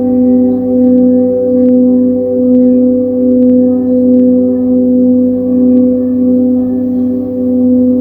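Quartz crystal singing bowls ringing in a sustained drone of a few steady tones, the low one strongest, wavering slowly in loudness about once a second.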